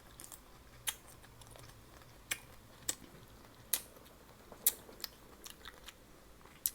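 Close-miked mouth sounds of eating sour mango: chewing and lip smacks heard as scattered, irregular sharp clicks.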